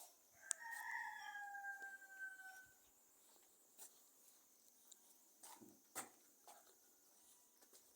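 One long animal call, pitched and slowly falling, lasting about two seconds, followed by a few faint clicks.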